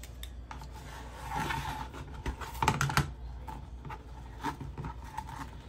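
Rustling and rubbing of plastic deco mesh being rolled by hand against a cutting mat, with a few sharp clicks about halfway through.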